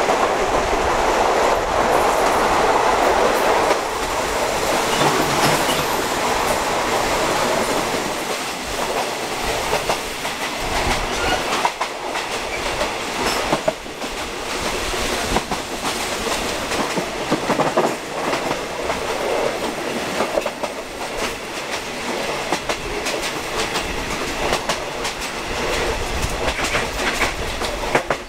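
Passenger train coaches running on the track: a steady rumbling ride noise with wheel clicks over the rail joints at uneven intervals.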